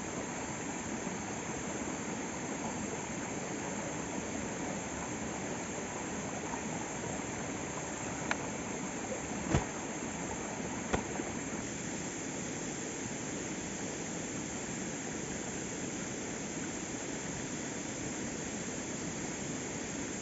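Waterfall rushing steadily, with three short knocks near the middle.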